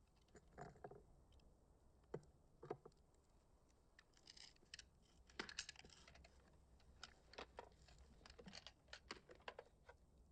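Near silence broken by faint, irregular small clicks and taps, sparse at first and more frequent in the second half.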